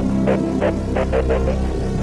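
Dark-toned intro music: a steady low drone under a repeating pulse of notes about three times a second.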